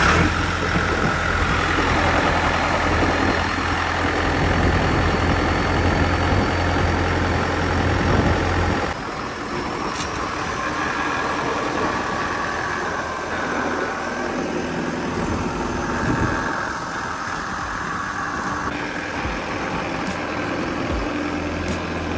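John Deere irrigation power-unit engine running just after starting, driving the well pump through a PTO shaft: a steady, deep engine hum that gets a little quieter about nine seconds in.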